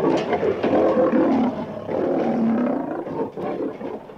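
Male lion roaring: two long, deep calls, the second starting about two seconds in.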